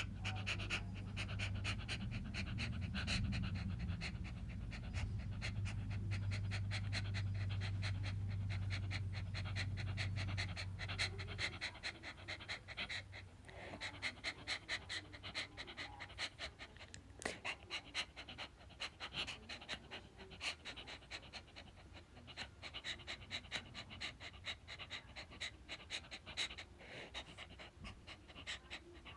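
A dog panting rapidly and steadily. A low steady hum runs under the panting for about the first eleven seconds, then stops.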